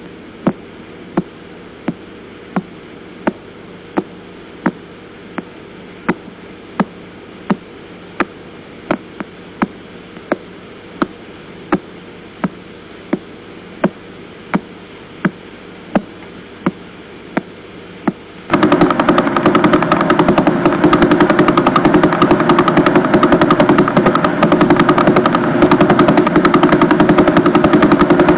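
Radio-telescope recording of a pulsar turned into sound: sharp clicks over steady hiss, about one every 0.7 seconds (roughly 1.4 a second), the rate of pulsar PSR B0329+54. About two-thirds of the way through it switches to a much faster pulsar, whose pulses run together into a loud, rapid rattling buzz.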